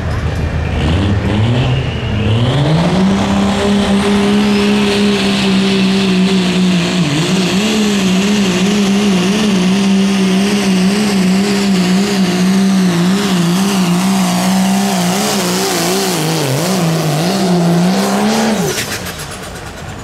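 Turbocharged diesel pickup at full throttle on a sled pull. The engine revs up over the first few seconds, holds a high steady pitch that wavers more and more as the run goes on, then lets off about a second and a half before the end.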